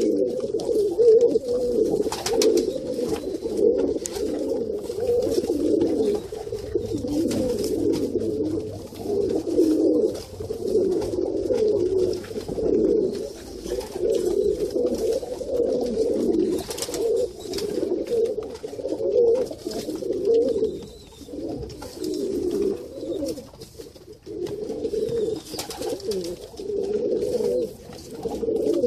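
A flock of Iranian high flyer pigeons cooing continuously, many birds overlapping in a low, warbling chorus, with a few short sharp clicks now and then.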